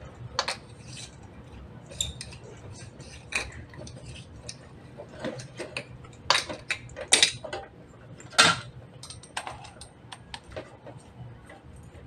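A plastic lamp receptacle, wires and a screwdriver being handled and fitted on a wiring board: scattered clicks, taps and light clatter, with a few sharper knocks in the second half.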